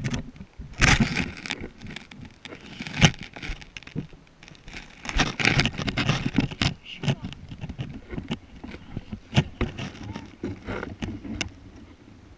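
Irregular scraping and rustling close to the microphone, with several sharp knocks: contact noise of the camera against gravel, dirt and plastic. It dies down near the end.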